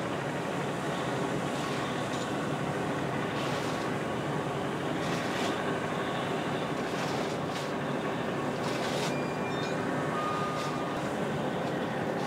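Steady low rumble of ship engines with the wash of water, broken by a few brief soft swells of hiss.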